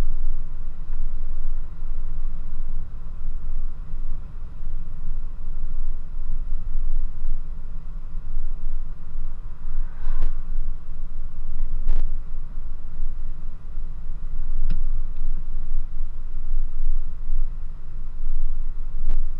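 Car driving, heard from inside the cabin: a steady low rumble of road and engine noise, with about four short, sharp knocks scattered through it.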